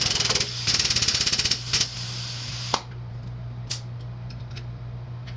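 Impact wrench hammering in two short bursts, the second lasting about a second and a half, over a steady low hum; a few single clicks follow.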